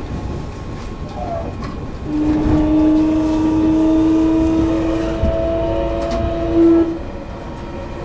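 Electric train running on the rails, with a train horn sounding one steady tone for about five seconds from about two seconds in. The horn swells briefly and then cuts off suddenly.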